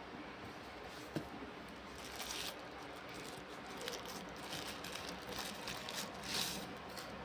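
Packaging being handled, rustling and crinkling, with one sharp click about a second in and brief louder rustles twice later on.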